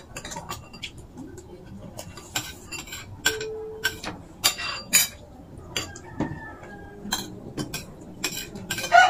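Spoons and forks clinking and scraping against plates as people eat: a scattering of short, sharp clicks.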